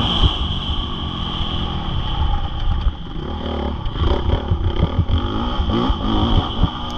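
Honda CRF450R four-stroke single-cylinder motocross bike engine being ridden hard. The throttle is opened and closed, so the engine pitch rises and drops several times in the second half.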